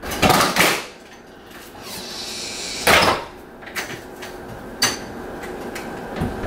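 A door being opened and shut by someone walking in: two loud knocks in the first second, a louder clack about three seconds in, then lighter clicks of the latch and steps.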